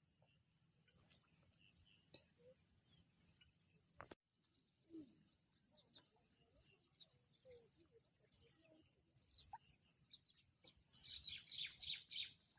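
Quiet outdoor ambience with a steady thin high-pitched tone and scattered bird chirps, which come thick and fast for a moment near the end.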